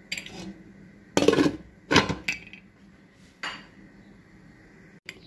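A ladle and a glass lid clattering against a metal cooking pot: about five sharp clinks, the loudest between one and two and a half seconds in, as the lid is set on the simmering pot.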